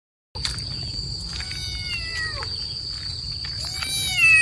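Kitten meowing several times, each cry falling in pitch, the loudest near the end, after a brief silent gap at the start. A steady high insect drone runs behind it.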